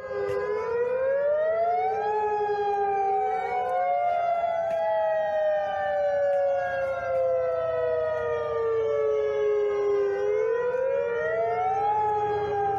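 Outdoor civil-defence warning siren sounding a tsunami warning. Its wail rises over about two seconds, falls slowly for about eight, then rises again near the end, with other copies of the same wail overlapping slightly out of step.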